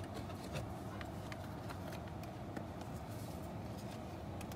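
Faint clicks and rustles of a cable being handled and tucked above a metal bracket, over a steady low hum.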